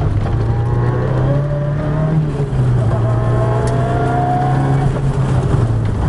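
Ford Sierra RS Cosworth rally car engine heard from inside the cabin, accelerating hard. The revs climb, drop at a gear change a little over two seconds in, climb again and ease off near the end, with steady road noise from the gravel underneath.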